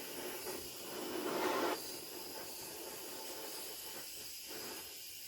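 Handheld torch flame hissing steadily as it heats the clutch's castle nut to soften the thread locker, getting a little louder for about a second near the start.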